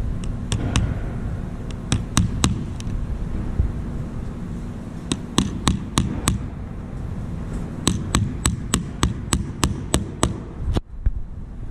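Hammer tapping small nails through thin plywood gussets into a wooden aircraft rib, the nail held in needle-nose pliers; the nails clamp the glued gussets while the glue sets. Sharp light taps come in short groups, ending in a quick run of about three to four taps a second.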